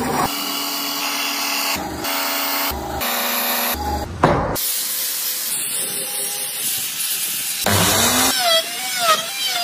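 Woodworking power tools in quick succession. A band saw motor runs with a steady hum for the first few seconds, broken by several abrupt edits. Near the end a plunge router cuts into the wood, its motor pitch wavering up and down.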